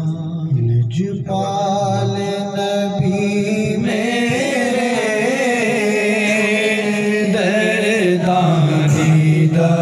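A man singing a Punjabi devotional naat into a microphone in long, held melismatic notes that waver and bend in pitch from about four seconds in, over a steady low drone.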